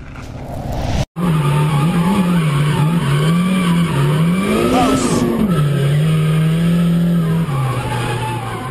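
Drift car's engine revving up and down with its tyres squealing, starting abruptly about a second in after a brief cut.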